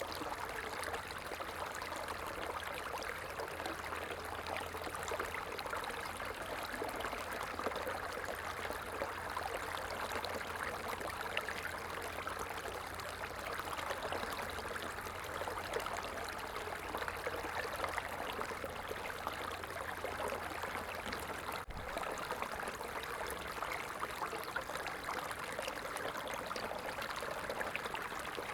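Running water flowing steadily, an even rushing splash with no pauses. A faint low rumble underneath drops away about three-quarters of the way through.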